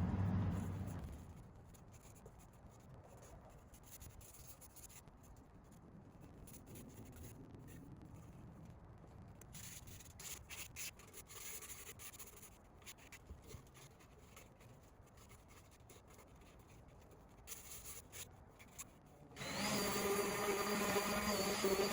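Sandpaper rubbing by hand over a wooden board in quiet strokes, with a few small clicks and knocks. A loud, steady electric buzz cuts off about a second in and starts again suddenly near the end.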